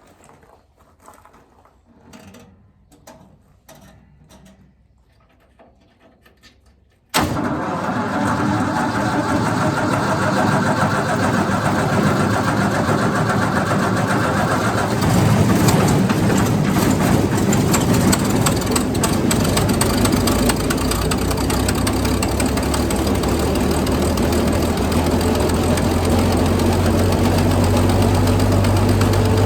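Faint clicks and rustling, then about seven seconds in the wood chipper's engine is suddenly heard running, loud and steady, to the end.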